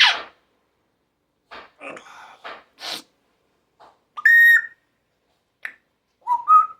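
A pet parrot calling and chattering in short bursts, then giving two clear whistles, the first high and the second lower, near the end.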